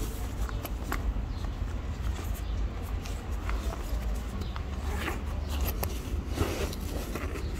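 Scattered rustling and short clicks of handling, over a steady low rumble.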